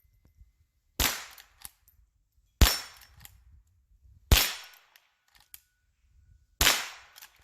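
Four shots from a Henry H001 .22 rimfire lever-action rifle, spaced about a second and a half to two seconds apart, each with a short echoing tail. Fainter clicks come between the shots.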